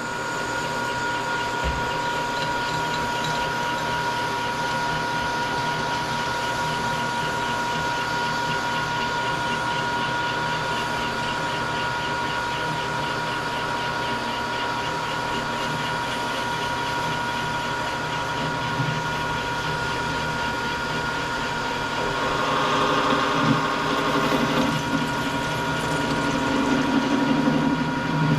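Metal lathe running steadily with a steady whine, joined about three-quarters of the way through by a rougher, louder cutting sound as the tool faces off the end of a W1 tool steel bar.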